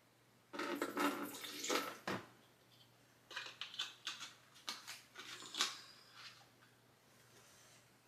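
Food containers, bottles and jars knocking, clattering and sliding as they are taken out of a refrigerator, in two busy spells a second or two apart.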